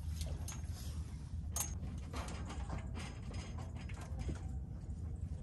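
Fishing tackle being handled: irregular clicks and light mechanical rattling, the strongest about one and a half seconds in, over a steady low rumble.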